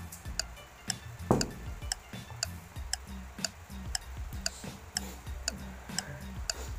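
Steady clock-like ticking, about two ticks a second, over a low repeating bass line, like a ticking music track. One louder thump comes about a second in.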